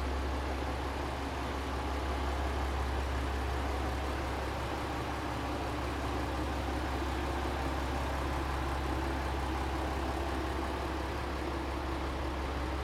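Ibara Railway IRT355 diesel railcar's engine idling while the railcar stands in the station: a steady low hum that does not rise or fall.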